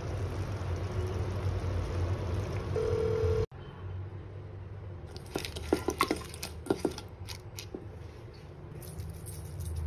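A steady rushing noise with a low hum that cuts off abruptly about three and a half seconds in. Then comes a scatter of light metallic clinks and taps, short and ringing, from raw prawns being handled in a stainless steel bowl.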